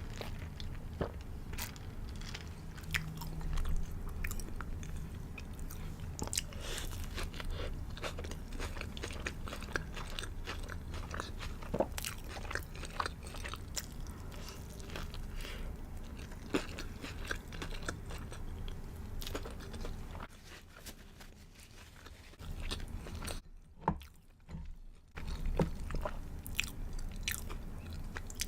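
A person biting and chewing a crispy fried chicken burger, with crunches of the breaded coating. The chewing goes much quieter for a few seconds about three quarters of the way through, then resumes.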